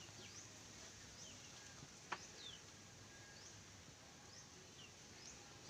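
Faint small-bird chirps: short, high calls that slide downward, repeating irregularly, with one sharp click about two seconds in.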